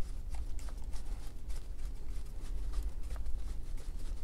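Faint small clicks and scrapes of a screwdriver turning a terminal screw to clamp the fuse holder's cable, over a steady low hum.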